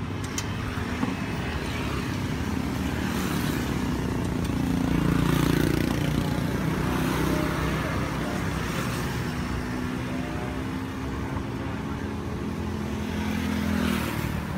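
Road traffic: motor vehicle engines running close by, swelling louder about five seconds in and then easing back.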